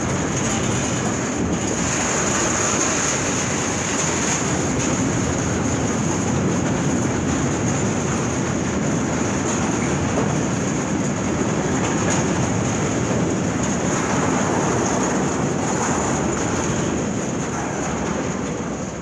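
Loaded ethanol tank wagons of a freight train rolling steadily past on the rails, with a steady high whine above the rolling noise. The sound falls away near the end as the last wagon goes by.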